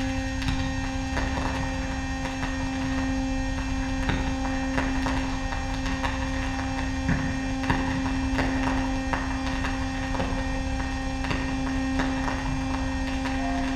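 Improvised electronic noise music: a steady, unwavering hum tone with fainter overtones over a low rumble, peppered with irregular clicks and crackles.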